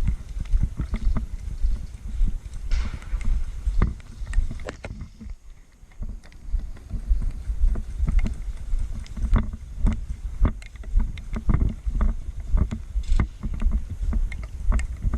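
Low rumbling wind and handling noise on a body-worn camera microphone, broken by many irregular clicks and knocks, with a short lull about five seconds in.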